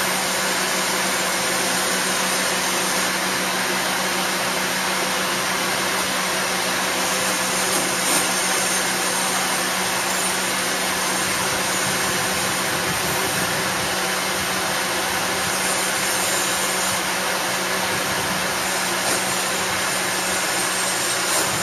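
Boatyard travel lift's engine running steadily with a constant hum as it lowers a sailboat into the water.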